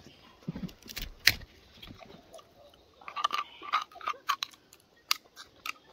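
A spoon clicking and scraping inside a coconut crab's claw shell as the meat is scooped out: irregular sharp clicks, busiest about three to four seconds in.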